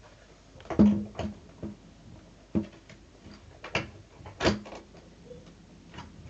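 Hard plastic knocks and clunks from parts of a carpet cleaner being pushed and fitted together, about seven irregular strikes, some with a short low ring.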